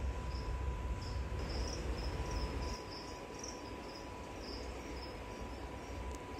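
Chirping insect: short high chirps repeated irregularly in little runs, over a low rumble that fades about three seconds in and a faint steady high whine.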